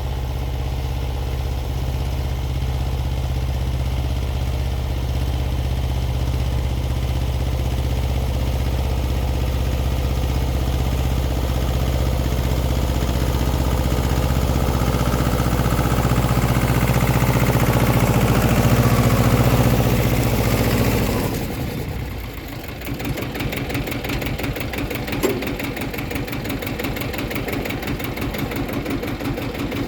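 Xingtai 220 minitractor's diesel engine running steadily while driving a rotary tiller, growing louder until about two-thirds of the way through. Then the sound drops abruptly and turns into a quicker, lighter, even clatter.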